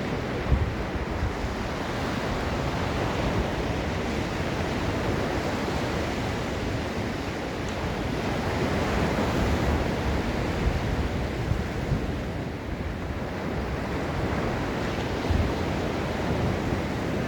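Ocean surf washing onto the beach in a steady rush that swells and eases slowly, with wind buffeting the microphone in a few brief low thumps.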